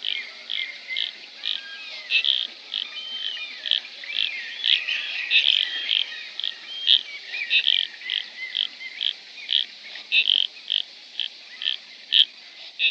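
Drake common goldeneyes giving their courtship calls at the height of display, heard at close range: a steady series of short, sharp calls about twice a second, with softer wavering calls between them.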